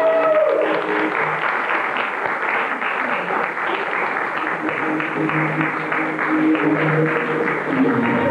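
Audience applauding, with music playing underneath. A held musical note ends about half a second in.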